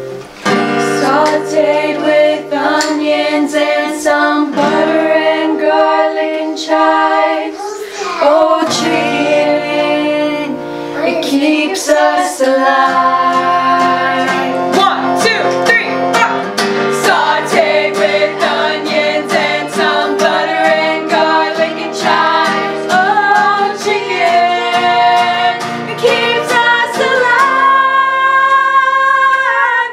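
A group of girls singing together, accompanied by a strummed acoustic guitar.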